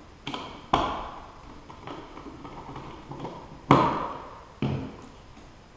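Sharp knocks and clicks of a wall switch and its mounting hardware being worked into a recessed electrical box, about four in all, the two loudest about a second in and near four seconds in, each with a short ringing tail.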